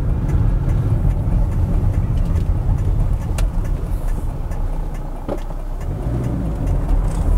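1989 Mini's four-cylinder A-series engine running as the car drives, a steady low rumble with road noise, easing off a little about five seconds in as the car comes to a junction.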